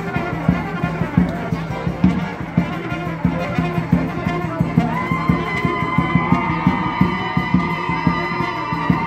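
Folk dance music with brass instruments over a steady, regular drum beat; long held brass notes come in about five seconds in.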